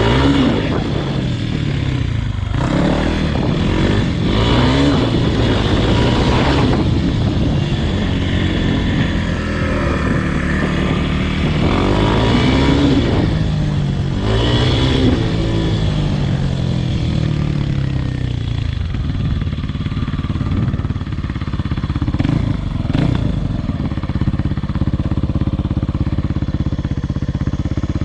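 Kawasaki KLX300R single-cylinder four-stroke dirt bike engine under way, revving up and down through the gears with its pitch rising and falling repeatedly. Near the end it settles to a steady, even run.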